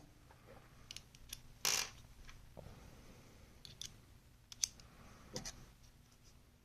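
Small metal clicks and light scrapes of a folding pocket knife and small tools being handled while its screws are worked on. The clicks are irregular, with a louder one about a second and a half in and another near the middle.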